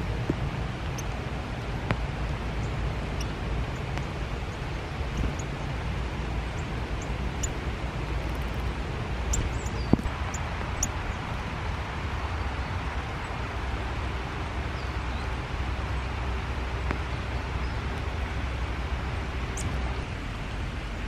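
Steady rain falling on leaves and the camera, an even hiss with a low rumble. A few brief, high chirps from small birds come through it now and then, and a sharp click about ten seconds in.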